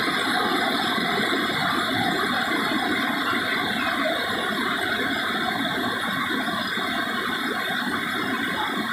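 White-water river rapids rushing over rock: a steady, dense wash of water noise.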